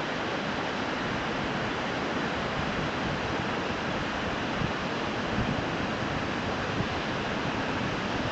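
Fukuroda Falls pouring in a steady, unbroken rush of falling water, flowing freely rather than frozen into an ice fall. A few brief soft low bumps sit under it.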